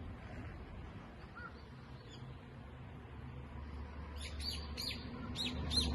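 Birds chirping: a run of about five short, sharp high calls starting about four seconds in, over a low steady rumble.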